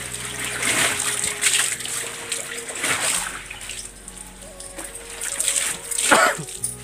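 Water splashing and sloshing in a tub as laundry is washed by hand, in several separate splashes with the loudest near the end. Background music plays steadily underneath.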